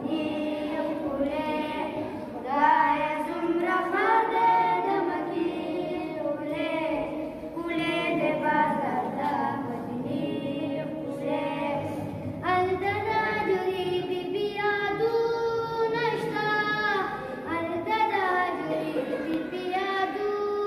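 Two boys singing a Pashto devotional nazm together without instruments, with long wavering melodic notes.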